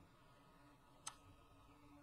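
Near silence with a single sharp computer mouse click about a second in, as a straight path line is placed on the map.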